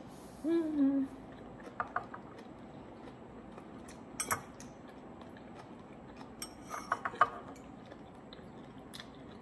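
A metal fork clinking against a bowl while someone eats: three short clusters of clinks, the loudest near the end. A brief hummed 'mmm' comes about half a second in.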